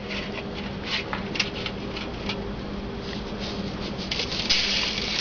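Plastic bag crinkling and rustling as it is handled, a run of small irregular crackles that grows denser near the end. A faint steady hum sits underneath.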